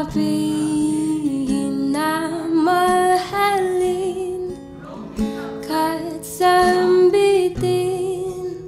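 Background music: a slow Tagalog-language ballad with acoustic guitar and a sung melody.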